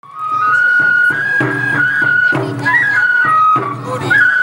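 Bon odori festival music: a flute playing a melody of held notes that step up and down, over drum strokes. It fades in at the very start.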